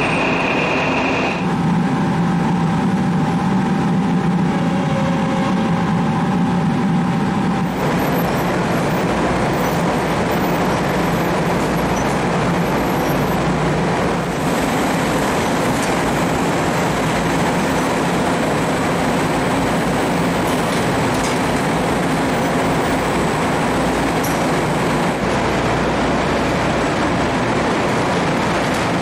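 Industrial bakery line running: a steady mechanical noise from the tunnel oven and its tray conveyors. It carries a faint steady hum for a few seconds, and its character shifts a few times.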